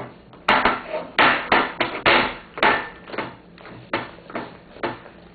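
A large dog eating a pancake off a plate and licking the plate clean: a quick, irregular run of wet licks and chomps, with the plate knocking on the table. About a dozen strokes, loudest in the first few seconds, thinning out toward the end.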